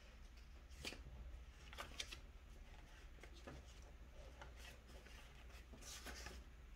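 Faint rustling of paper with a few light clicks, as of papers or sticker sheets being handled, over a low steady room hum.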